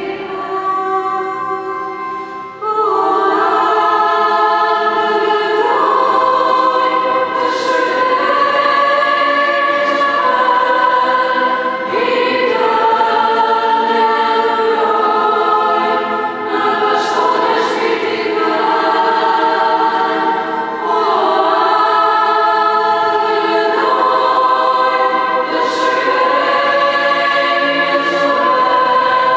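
A choir singing a slow hymn in long held chords that change every couple of seconds, growing fuller about three seconds in.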